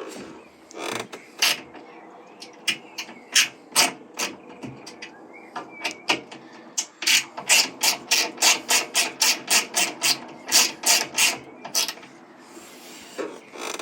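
Ratchet wrench clicking as the roller kit's small mounting bolts are tightened. The clicks are scattered at first, then come at about four a second for several seconds in the second half.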